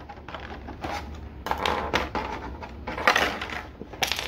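Clear plastic blister tray and a small plastic bag crinkling and clicking as they are handled, in two louder stretches, with a sharp click near the end.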